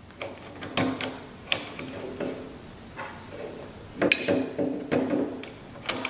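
Dummy .45-calibre rounds being pressed one at a time into a 1911 pistol magazine: a series of sharp metallic clicks and clinks at irregular intervals.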